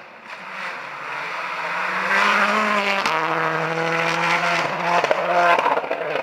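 Subaru Impreza rally car at full speed on a gravel stage, its engine note climbing and growing louder as it approaches. There is a sharp upshift about three seconds in as it passes, then it pulls away on a steady note over the hiss of gravel. The sound cuts off suddenly at the end.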